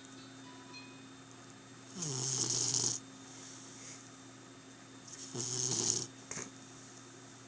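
A sleeper snoring: two long, rasping snores about three and a half seconds apart, each lasting about a second, over a faint steady hum.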